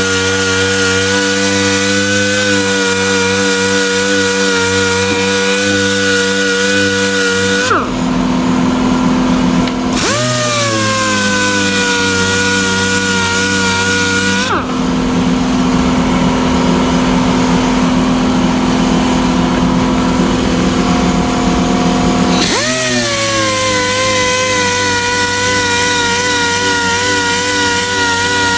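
Random orbital sander running steadily while sanding body filler on the bare steel of a car's engine bay. Its speed drops twice, for about two seconds and then for about eight, and each time whines back up to full speed.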